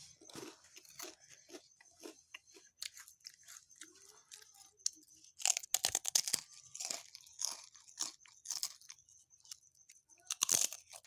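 A person sipping hot, bitter herbal kadha in small slurps, with irregular clicks and smacks of the lips and mouth and a denser cluster near the end.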